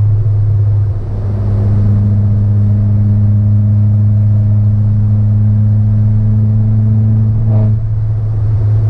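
Peugeot 308 THP's turbocharged four-cylinder and exhaust heard from inside the cabin, cruising at a steady engine speed with a steady low drone. There is a brief dip about a second in, and a short change in the sound near the end.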